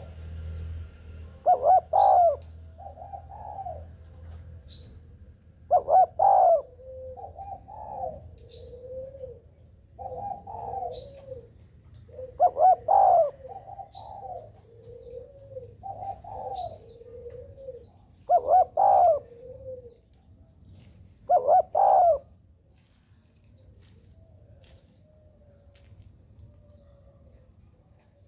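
Spotted dove cooing in repeated phrases every few seconds, each a loud double note followed by softer rolling coos, falling silent about 22 s in. Brief high, down-slurred chips from a sunbird come between the phrases.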